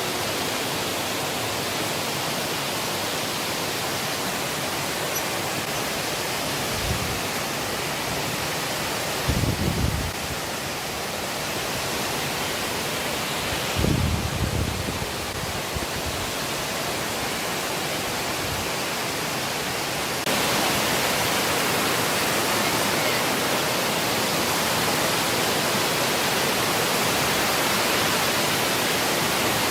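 Steady rushing of a waterfall, with a few low thumps in the middle; the rush gets suddenly louder about two-thirds of the way through.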